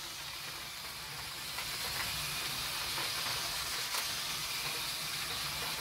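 Battery-powered Tomy toy trains and cars running on plastic track: a steady whir of their small motors and gearing, with a couple of faint clicks.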